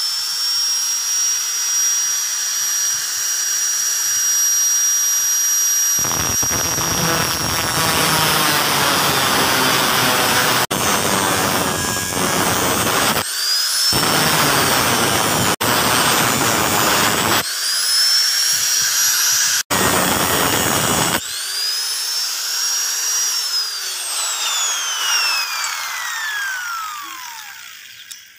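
Angle grinder with a cutting disc spinning up to a steady high whine and cutting into a steel bolo blade in several stretches of harsh grinding. Near the end it is switched off and its whine falls away as the disc winds down.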